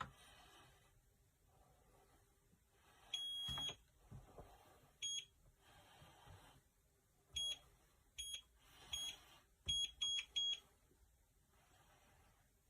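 Electronic keypad beeps of a biometric pistol safe: one longer beep about three seconds in, then seven short high beeps at uneven spacing, the last three in quick succession.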